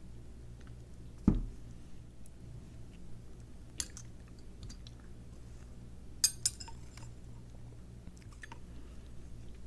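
A glass jar set down on a table with a single heavy thump about a second in. After it come a few sharp clicks and soft wet mouth sounds of chewing honeycomb.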